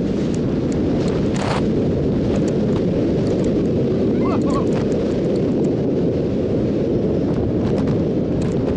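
Heavy, steady wind buffeting the microphone of a camera carried by a skier descending fast through powder snow, with scattered light clicks.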